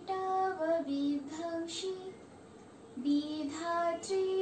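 A woman singing solo, holding notes and stepping from one pitch to the next, with a short break about halfway through.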